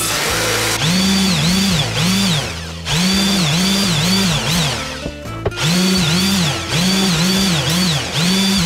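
Background electronic music: a repeating synth figure of rising-and-falling pitch sweeps in groups of about four, over a stepping bass line.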